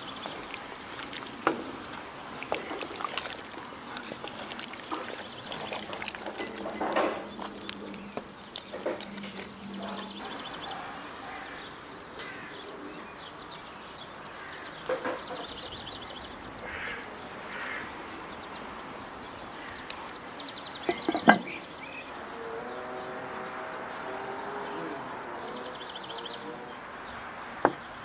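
Outdoor background sounds: birds chirping, a run of animal calls in the latter part, and scattered clicks and knocks, the loudest about two-thirds of the way through.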